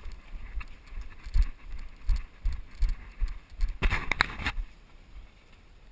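Footsteps and gear jostling against the player's camera as a player walks, with low uneven thumps about twice a second. About four seconds in comes a short burst of crackling and rattling, like brush or gear rubbing on the microphone.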